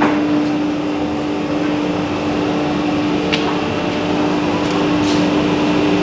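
Woodworking factory machinery running with a steady hum and one constant tone, with a few faint clicks.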